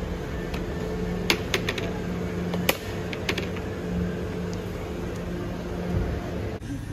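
A handful of sharp clicks and rattles as a black plastic shopping basket and its handles are handled on a wire shopping cart, over a steady background hum.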